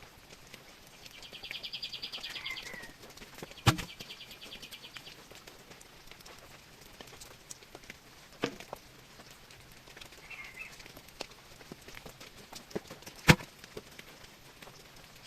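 Three sharp knocks several seconds apart, the last the loudest, with a fast, high-pitched trill heard twice in the first five seconds.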